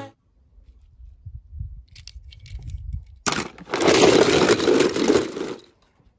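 Die-cast toy cars clattering against each other in a plastic tub: a few faint clicks, then about two and a half seconds of dense, loud rattling starting a little past the middle.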